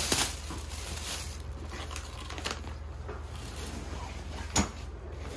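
Plastic bags and fabric luggage bags rustling and crinkling as they are rummaged through and pulled about. Two sharper bumps stand out, one just after the start and the loudest about four and a half seconds in.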